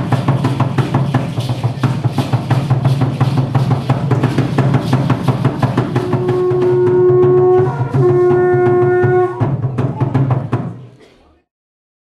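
Rapid, steady drumming on a huehuetl, an upright wooden Aztec drum, with ankle-rattle and percussion accents, accompanying an Aztec dance. Past the middle, two long held horn-like notes sound over the drumming. The drumming then stops and the sound fades out.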